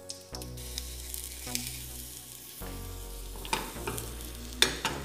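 Banana pancake batter frying in oil in a nonstick frying pan: a steady sizzle with small crackles, and a few sharp clicks, the loudest near the end.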